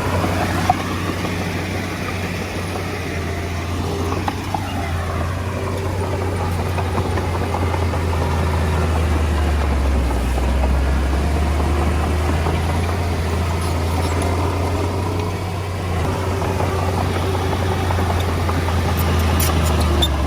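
Komatsu D20A bulldozer's diesel engine running steadily with a deep low hum, with a few brief knocks near the start and light clicking near the end.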